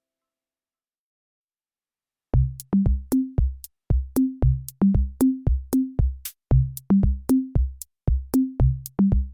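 Background music: after about two seconds of silence, an electronic drum-machine beat starts, with short pitched bass-drum hits about three a second and sharp clicks on top.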